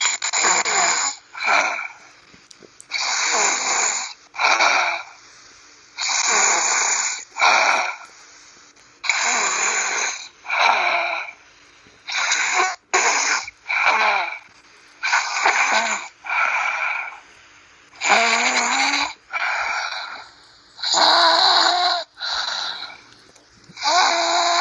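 Snoring in a regular cycle about every three seconds: each cycle is a longer noisy breath of about a second, followed shortly by a shorter one.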